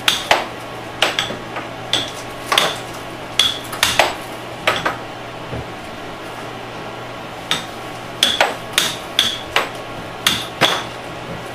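Air hockey play: the plastic puck and mallets clacking against each other and the table's rails in sharp, irregular strikes, one or two a second, with a pause of a couple of seconds around the middle. Under it runs the steady hum of the table's air blower.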